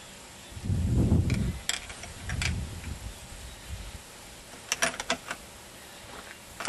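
Bohica FAR-50 .50 BMG rifle being loaded by hand: low rumbling handling noise with a few metallic clicks, then a quick run of sharp clicks and clacks about five seconds in as the cartridge is chambered and the bolt closed.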